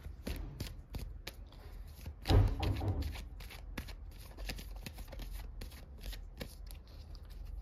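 A deck of tarot cards being shuffled by hand: a string of quick card flicks and slaps, with one louder thump about two and a half seconds in.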